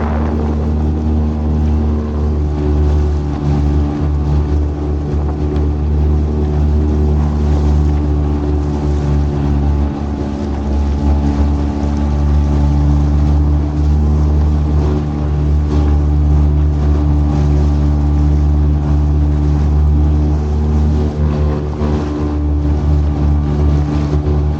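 Outboard motor of a small fishing skiff running steadily at cruising speed, a constant low engine drone.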